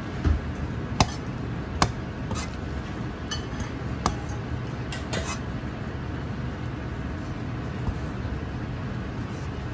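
Chinese cleaver knocking and clicking against a cutting board while thin-sliced lamb is cut, about six sharp clicks in the first half, fewer later, over steady low background noise.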